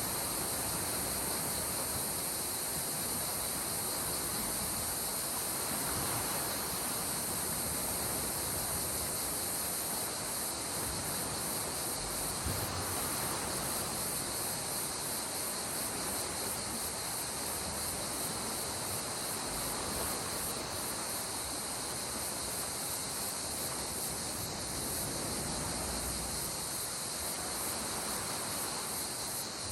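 Gentle sea water washing at the shore in soft, slow swells, under a steady high-pitched buzz that never lets up.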